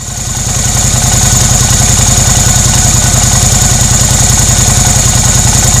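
Air-cooled V-twin cruiser motorcycle engine idling with a steady, even pulse; it fades in over the first second.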